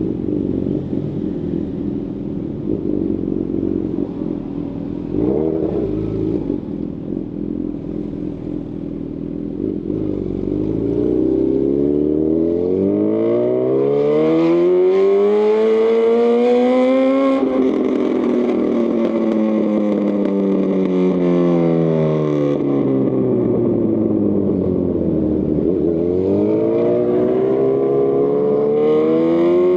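2018 Honda CB1000R's inline-four engine through a Lextek CP1 full exhaust, running low and steady with a brief blip about five seconds in. The revs then climb for about seven seconds, drop back for about eight, and rise again near the end.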